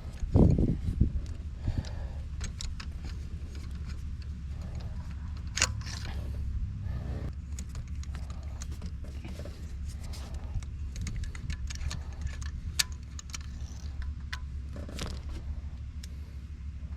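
Scattered metallic clicks and clinks, like hand tools and sockets being handled during spark-plug work, with a loud knock at the very start. A steady low hum runs underneath.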